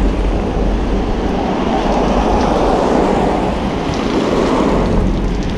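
Car tyres hissing on a rain-soaked road as a car passes, the noise swelling in the middle and easing off near the end, over steady rain and wind rumbling on the microphone.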